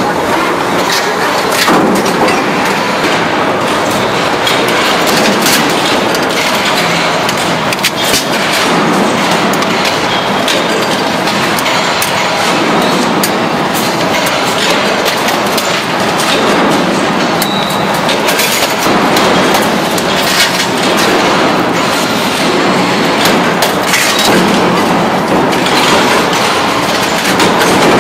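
Loud, steady factory noise of running machinery, with frequent sharp metallic clicks and clatter throughout.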